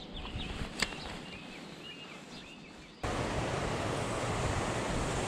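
Small birds chirping in short, repeated wavering notes over a fading background, with a single sharp click a little under a second in. About three seconds in, the sound cuts abruptly to a steady rushing outdoor noise.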